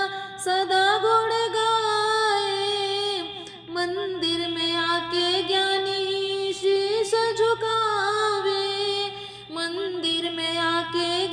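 A high female voice singing a Hindi devotional bhajan to Ganesh, drawing out long wavering notes, with short breaths between phrases.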